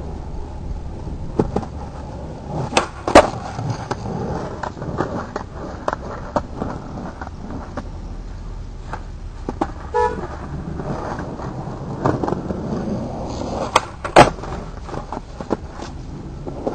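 Skateboard wheels rolling on pavement, with repeated sharp clacks of the board's pops and landings; the loudest come in close pairs about 3 seconds in and about 14 seconds in.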